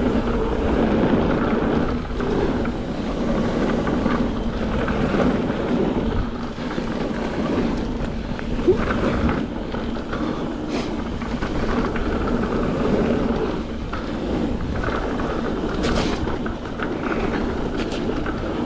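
Mountain bike riding down a dirt and gravel trail: a steady rumble of tyres rolling over the ground as the bike rattles, with a few sharp knocks from the rough surface.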